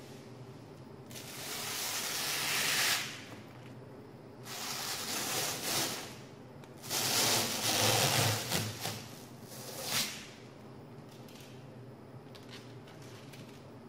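Clear protective plastic film being peeled off a microwave door, crinkling and rustling in three or four long pulls with short pauses between them.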